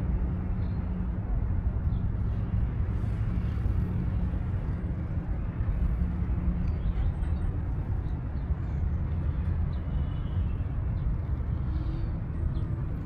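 Steady low outdoor background rumble, with no meows or other distinct sounds standing out.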